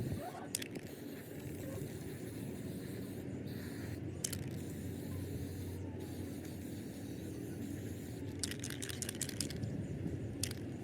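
Steady low mechanical hum with a few sharp metallic clicks, and a quick run of clicks near the end: workshop noise.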